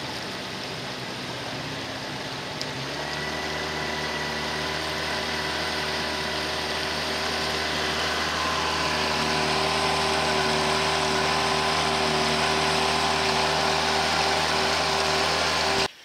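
Small boat's tiller-steered outboard motor running over a steady hiss; about three seconds in it settles into a higher, steady drone that slowly grows louder, then cuts off suddenly near the end.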